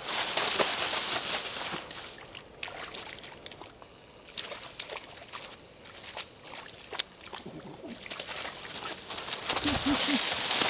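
Dry fallen leaves rustling and crunching under a running dog and the stick it drags, with scattered small snaps and clicks. Loudest at the start and again near the end, quieter in the middle.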